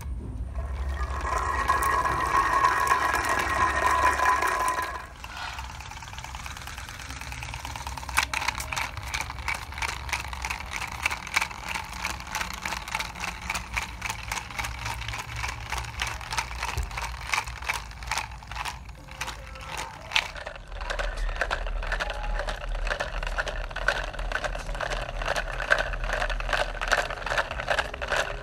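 Small homemade toy robot car driven by a cell-phone vibration motor, buzzing and rattling as it moves across concrete. A louder, steadier whine for the first few seconds gives way to a fast, even clatter of tiny ticks.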